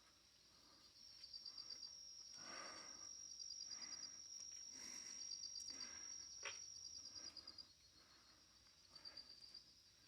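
Faint night insects, crickets, chirping in short repeated pulsed trills, with a steady high insect whine through much of it. A few soft breath-like sounds and one sharp click about six and a half seconds in.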